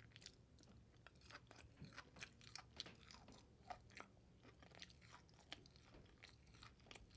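Close-miked chewing of a mouthful of tough, chewy goat meat: faint, irregular wet mouth clicks and smacks.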